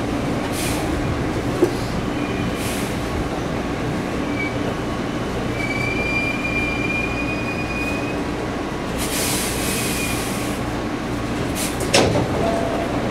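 Hankyu Kobe Line electric train running on the rails, heard from inside the front car, with a steady rumble of wheels on track. A thin, high squeal of wheels or brakes rises about six seconds in and lasts some two seconds. Short hissing sounds come through now and then, the strongest around ten seconds in.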